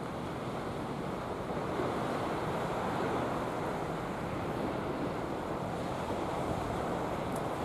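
Steady wash of sea surf on the beach, mixed with wind buffeting the microphone.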